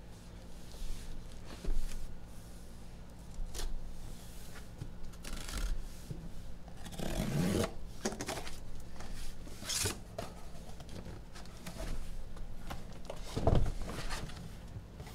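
A taped cardboard trading-card shipping case being opened by hand: cardboard rubbing, scraping and tearing in irregular bursts, with a heavier thump near the end.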